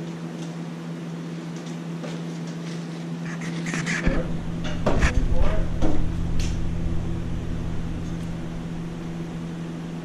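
Vehicle hoist lowering a car, a steady mechanical hum that holds its pitch. About four seconds in, a low rumble joins it, with a few brief clunks over the next couple of seconds.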